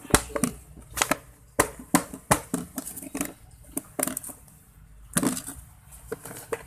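Plastic storage boxes and tubs being handled on a tiled floor: a dozen or so irregular sharp clicks and knocks of hard plastic, with a quick cluster of them about five seconds in.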